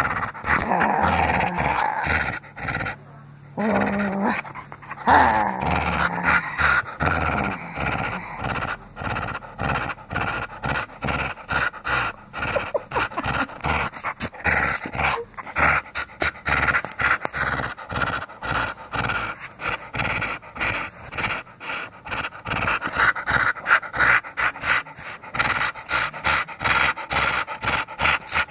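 Shetland sheepdog panting hard and fast close to the microphone while tugging on a rope toy, a quick, even run of breaths through most of it. Some pitched, wavering vocal sounds in the first few seconds, with a brief pause between them.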